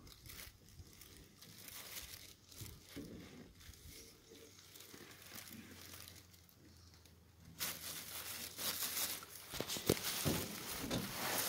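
Discarded bandage wrap, tape and trash being crumpled and gathered up, a soft crinkling rustle that grows louder about two-thirds of the way in, with a sharp click near the end.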